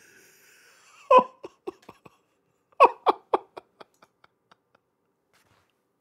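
A man laughing softly in two runs of short breathy pulses, the second stronger and trailing off at about four a second, choked up enough that he is near tears.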